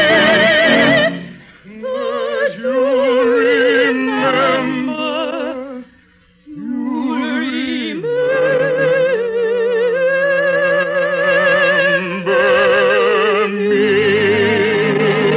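Operatic singing with heavy vibrato on long held notes, breaking off briefly about six seconds in before the next phrase.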